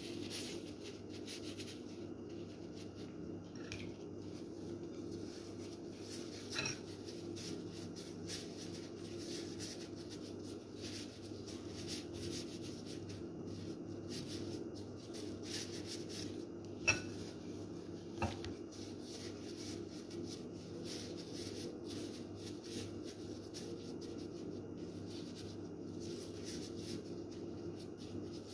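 Plastic-gloved hands working food in a ceramic bowl: soft rubbing and rustling, with three sharp clinks of dishware, the loudest a little past the middle, over a steady low hum.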